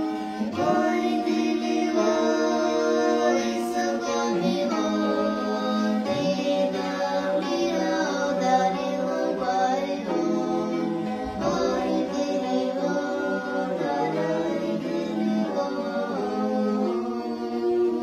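Voices singing a Svan folk song over the steady drone of a bowed chuniri, a three-stringed skin-bellied fiddle, with a changi harp plucked along.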